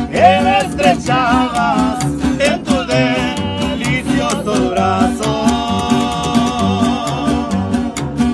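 Acoustic band playing a Mexican song: the tololoche (upright bass) plucks a steady bass line under strummed acoustic guitars. A wordless voice wavers over the music in the first few seconds, and a long held note follows from about five seconds in.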